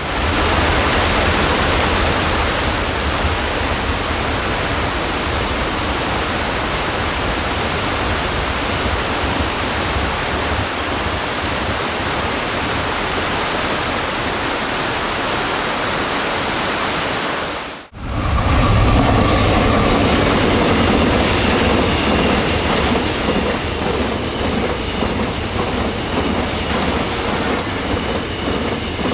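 Water rushing steadily over a weir. After a sudden cut about two-thirds of the way in, a bulk cement freight train rumbles past, its wagon wheels clacking over the rail joints.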